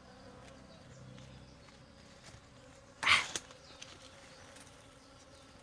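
Honeybees buzzing around their hive, a faint steady hum. About three seconds in comes one brief, louder sound lasting a fraction of a second.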